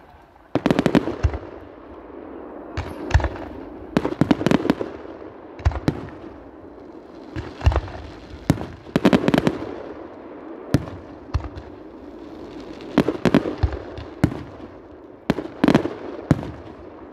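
Fireworks display: sharp bangs from launching and bursting shells come in rapid clusters every second or two, fired from a multi-shot barrage.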